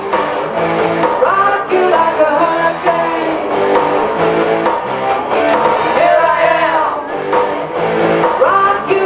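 Rock song: strummed guitar and a singing voice over a steady beat.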